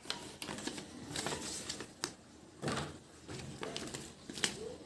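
Irregular clicks and short rustles of hands handling the earbuds' packaging and case. A sharper click comes near the end.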